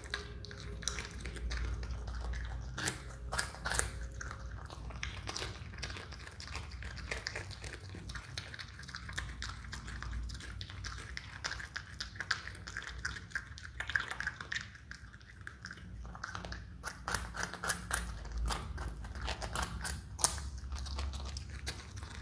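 Himalayan marmot biting and chewing a raw carrot: a steady run of crisp crunches and clicks from its teeth, coming thickest near the end.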